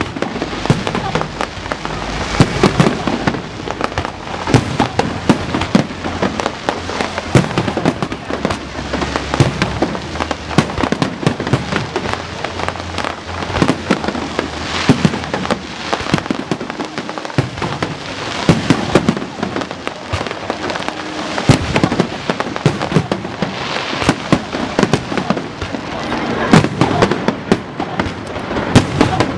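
Fireworks display: a dense, continuous barrage of bangs and crackling bursts, many shells going off each second with no pause.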